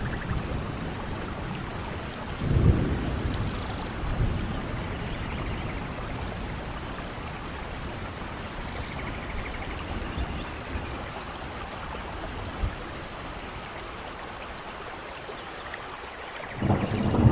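Steady rain falling, with low rolls of thunder swelling about two and a half seconds in and again near the end.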